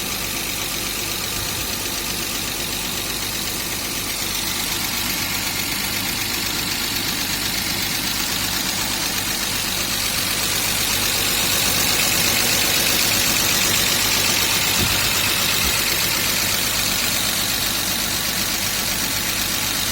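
BMW M50B25 straight-six idling evenly just after its first start on a freshly reassembled top end. Its hydraulic lifters are still clattering as they fill with oil and bleed.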